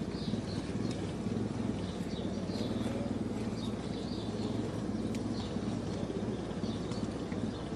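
Outdoor background noise: a steady low hum with faint, short high chirps scattered throughout.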